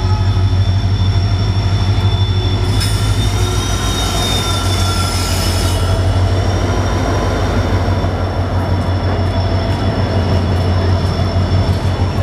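Express train braking as it enters a station: its wheels and brakes screech in steady high-pitched squeals over the train's low rumble. A burst of hiss joins in from about three to six seconds in.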